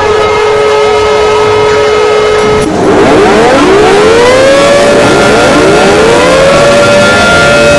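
Civil defense sirens sounding as an emergency alarm: a steady siren tone, then about two and a half seconds in it switches abruptly to several sirens winding up in overlapping rising glides that settle onto a higher steady tone.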